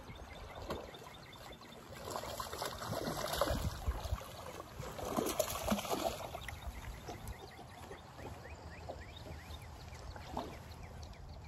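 Lake water lapping and sloshing against a boat hull, louder from about two to six seconds in.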